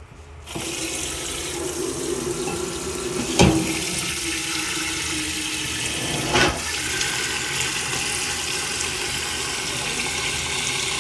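Water pouring steadily into a cooking pot to fill it, with two short knocks about three and six seconds in. The pouring starts about half a second in and cuts off abruptly near the end.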